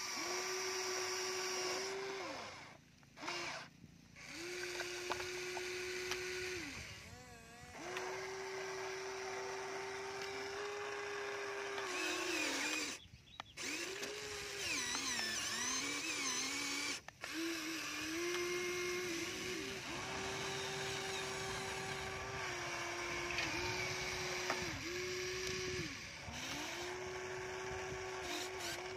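Huina radio-controlled toy excavator's small electric motors whining as it works its arm and bucket into the dirt. The whine holds one pitch, stops and starts again several times, and sags briefly in pitch now and then as the motors take the load.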